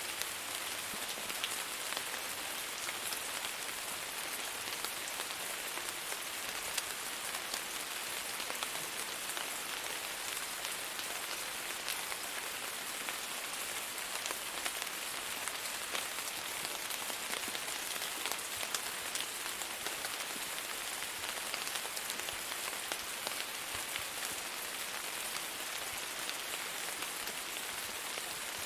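Steady rain falling on a surface, an even hiss full of fine individual drop ticks.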